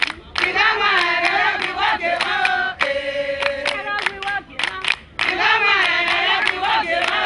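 A group of women singing together, with hand claps keeping a steady beat. The same sung phrase comes round twice, with a held lower note between.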